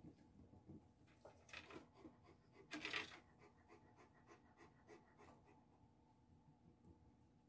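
Kittens at play: mostly near silence, with two short breathy noises about a second and a half and three seconds in, the second louder.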